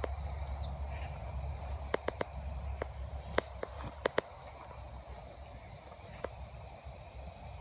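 A person walking across a grass lawn while carrying a phone camera, with a low handling rumble and a few sharp clicks, clustered about two to four seconds in and once more after six seconds. A steady high-pitched insect drone sounds behind it.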